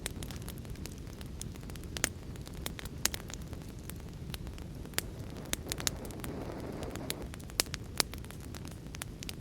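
Wood fire crackling: a steady low rumble with irregular sharp pops and snaps, and a brief soft hiss about six seconds in.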